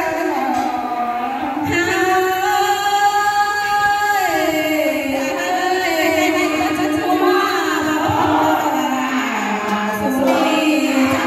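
Amplified female voice singing a Thai ethnic folk song (hát Thái), with long held notes that slide down between phrases.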